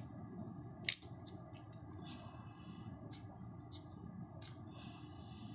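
Plastic clicks and scraping of a QiYi 1x2x3 puzzle cube being turned by hand: one sharp click about a second in, a few lighter clicks, and two short stretches of scraping.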